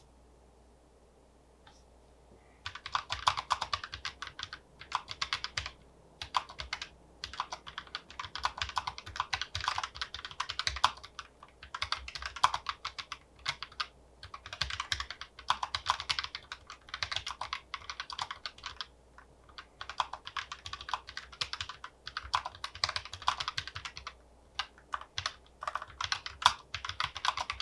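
Typing on a Keychron K1 Version 4 low-profile mechanical keyboard with Keychron low-profile brown tactile switches: quick runs of light key clicks with short pauses between words, pretty quiet.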